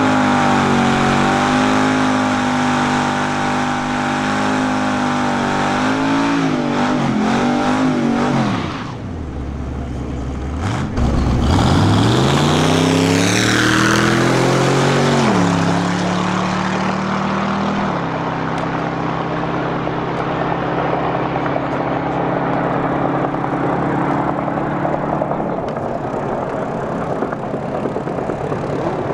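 Drag-racing pickup truck's engine running loudly at the start area, then launching and accelerating hard, its pitch rising steeply, about halfway through. A steadier, thinner engine note follows as the truck runs on down the quarter-mile.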